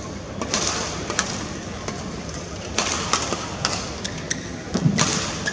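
Badminton play heard from courtside: irregular sharp knocks and taps of racket strikes and footwork on the court, over a steady murmur of the arena. A heavier low thud comes about five seconds in.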